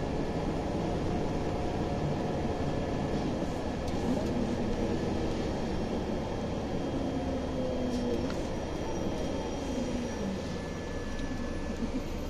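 Scania OmniLink city bus driving, its engine and drivetrain running steadily as heard inside the passenger cabin, with faint tones that slide up and down in pitch.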